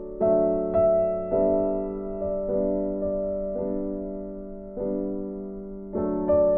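Background music: soft piano or electric-piano chords, struck about once a second and left to fade.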